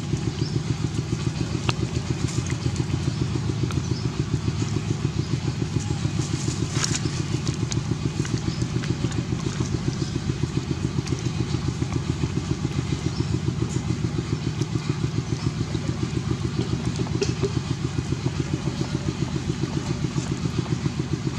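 An engine running steadily at idle, a fast, even, low pulsing that does not change. A few light crackles sound over it, the clearest about seven seconds in.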